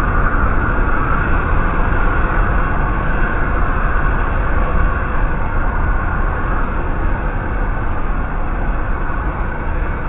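Liquid helium boiling off from an MRI magnet during a forced rapid warm-up: the cold gas vents in a loud, steady rushing hiss with a deep rumble underneath, easing slightly over the last few seconds.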